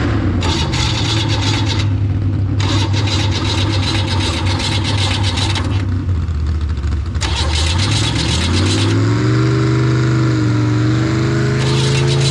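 Mini rod pulling tractor's engine running steadily at a low speed, then revving up about eight seconds in and holding at a higher, steady speed.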